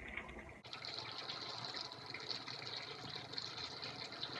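Chicken curry with whole red and green chillies sizzling and crackling as it is fried in oil over high heat. It starts abruptly about half a second in.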